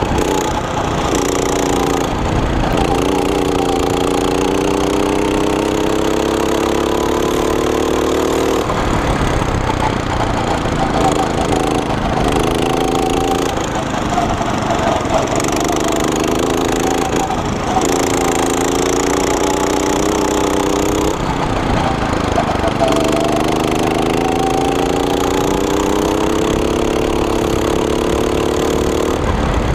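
Go-kart engine running hard under the driver, its pitch climbing slowly along each straight and dropping away sharply several times as the throttle is lifted for the corners.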